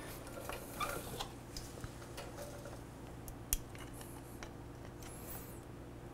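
Screwdriver blade ticking and scraping against the brake pads of a removed motorcycle brake caliper as the pads are levered apart to push the pistons back into the caliper. A few light metal clicks, with one sharper click about three and a half seconds in and a brief high squeak near the end, over a steady low hum.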